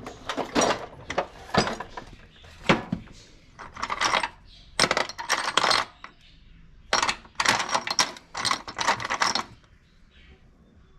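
Metal clinking and rattling in short bursts, about eight clusters of quick clicks with pauses between them, dying away near the end.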